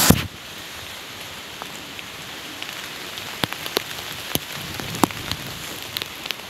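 Steady rain falling, an even hiss with single drops striking close by every so often. A brief louder rustle at the very start.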